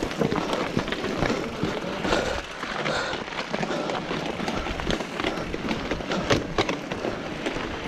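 Mountain bikes rolling in a group over a rough dirt and gravel track: tyres crunching on grit, with irregular clicks and rattles from the bikes.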